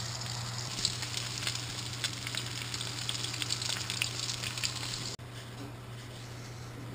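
Breaded fish fillets sizzling and crackling as they shallow-fry in hot oil in a nonstick pan, with a steady low hum underneath. The sizzling cuts off suddenly about five seconds in, leaving a fainter hiss.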